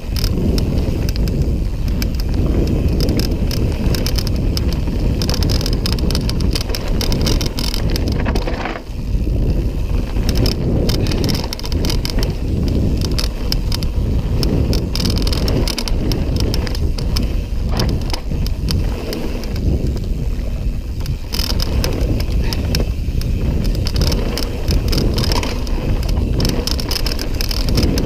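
Full-suspension mountain bike descending a dirt trail at speed: wind rumbles on the handlebar camera's microphone over the tyres on dirt, with a constant rattle and clatter from the bike over the bumps.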